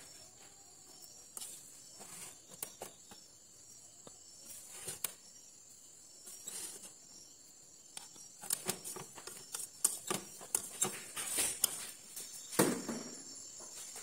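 Plastic rice paddle scooping cooked rice from an electric rice cooker's inner pot into a ceramic bowl: scattered soft taps and scrapes that grow busier in the second half, with one louder knock near the end, over a steady high-pitched background tone.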